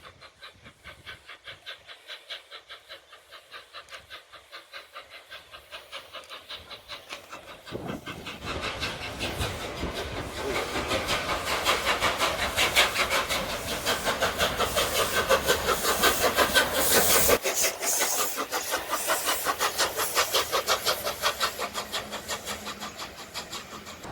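Steam locomotive working past, its exhaust chuffing in steady beats about three a second. The beats grow from faint to loud as it approaches, are loudest in the middle and ease off near the end.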